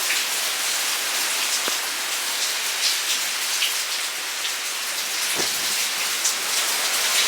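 Heavy hurricane rain pouring steadily, a dense even hiss with scattered individual drop hits.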